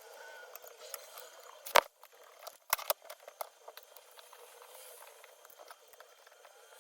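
Small plastic clicks and light scraping from handling keyboard parts, with two sharp, louder clicks about a second apart near the middle.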